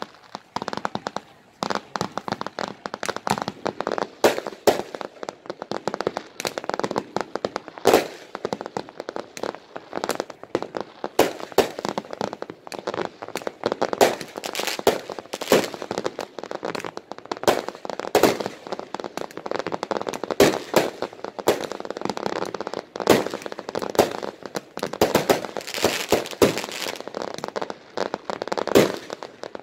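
Fireworks and firecrackers going off without a break: a dense, irregular crackle of pops and bangs, with louder bangs every two or three seconds.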